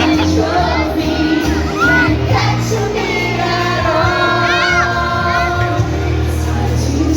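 Pop song playing loudly over a sound system with a steady bass line, while a group of children sings along.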